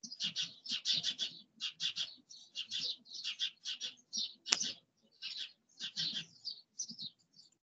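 Small birds chirping: a busy, irregular run of short, high chirps, several a second.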